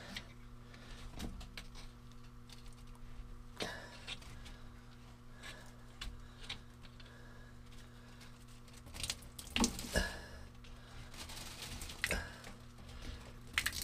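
Hands working the clamp and rubber drain cap off the exhaust manifold drain port of a GM 5.7 L marine engine, with small clicks and scrapes. From about nine seconds in, warm draining water spills onto a plastic bag covering the starter, with louder rustling and splashing. A steady low hum runs underneath.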